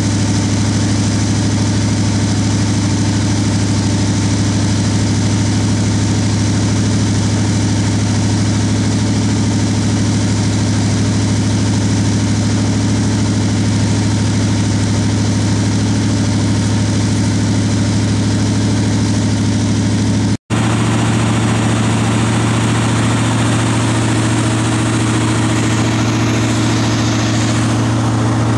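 Chevrolet Caprice's LT1 5.7-litre V8 idling steadily with no revving; the owner says it will not idle at the proper rpm despite every vacuum line being checked.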